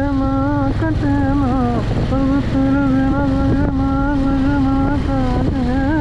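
A slow melody of held notes with bending, sliding ornaments, sung, hummed or played, over a steady low vehicle rumble.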